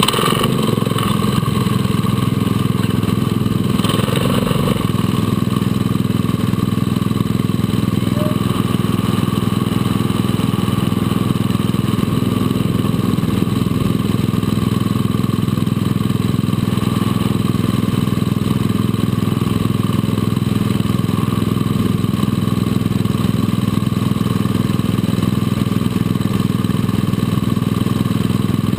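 Small go-kart engine idling steadily at a constant, unchanging pitch, with no revving.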